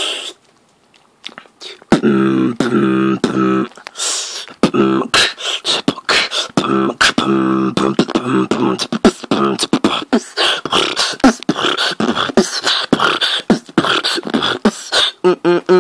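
Beatboxing, starting about two seconds in: a fast run of sharp mouth clicks and snare-like hits, with stretches of hummed low bass notes.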